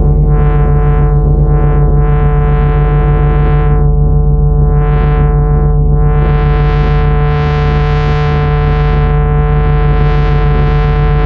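Electronic synthesizer music: a steady low drone of held tones under a brighter layer that swells and fades every second or so, opening up and staying bright from about six seconds in.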